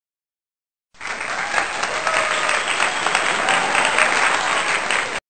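Crowd applause, a dense patter of many clapping hands, starting about a second in and cutting off suddenly near the end.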